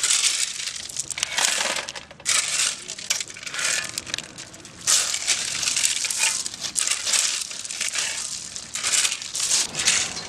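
Irregular bursts of crunching, crackling noise, coming in quick clusters.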